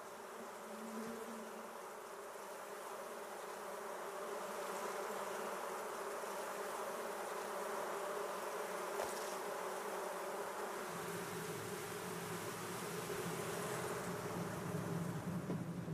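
Steady buzzing hum of a mass of honey bees on the comb, growing a little louder over the first few seconds, with a deeper hum joining about eleven seconds in.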